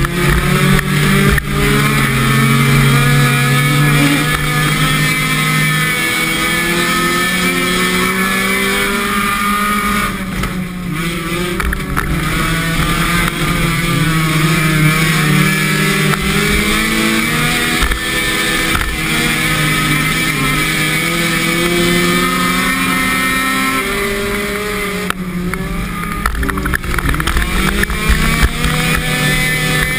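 A car's engine heard from inside the cabin, revving up and down constantly as the car is driven sideways through a drift. It eases off briefly twice, about a third of the way in and again near the end.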